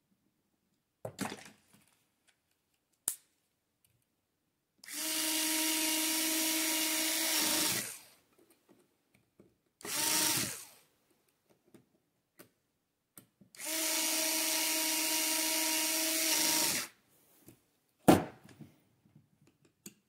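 Metabo cordless screwdriver driving small screws: two runs of about three seconds each with a steady motor whine, and a shorter burst between them. A few sharp clicks come before and after.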